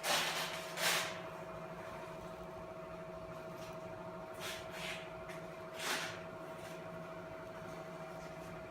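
A few short rustling noises, at the start, about a second in and twice more around five to six seconds in, over a faint steady hum.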